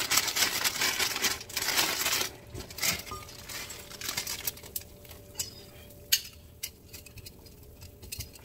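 A dry instant ramen noodle block being snapped inside its crinkly plastic packet: dense crackling for about the first two seconds. Then scattered clicks and taps as the noodles go into a metal saucepan and tongs knock against it, the sharpest about six seconds in.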